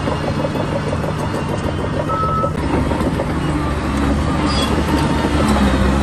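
Komatsu D20P crawler bulldozer's diesel engine running with a dense, fast clatter from the tracks and blade work, growing a little louder after about three seconds. A single short high beep sounds a little over two seconds in.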